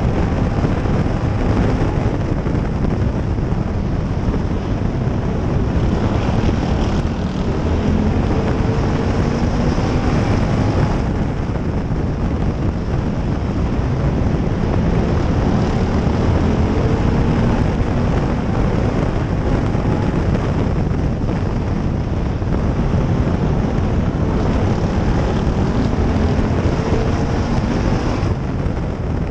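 Onboard sound of a stock car's engine running hard at racing speed, a loud continuous drone whose pitch rises and falls every few seconds as the driver works the throttle around the oval.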